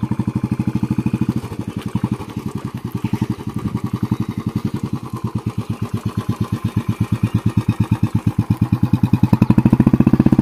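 Royal Enfield Classic's single-cylinder engine running at low revs, an even, rapid thump from the exhaust, getting louder near the end.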